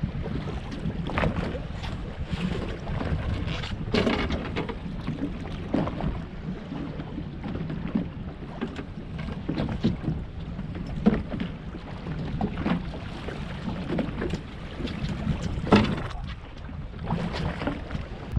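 Wind buffeting the microphone and choppy waves slapping a small fishing boat's hull, with scattered knocks and splashes as a walleye is played, netted and brought aboard; the sharpest knock comes near the end.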